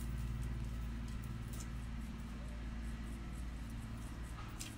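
A steady low mechanical hum from a running motor.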